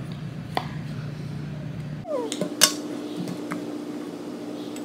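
Metal spoon clinking against a stainless steel bowl while spooning out salad: a few scattered clinks, the loudest a little past halfway.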